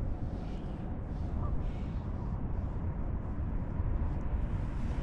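Steady low rumble of moving river water, picked up by a camera held underwater during a fish release.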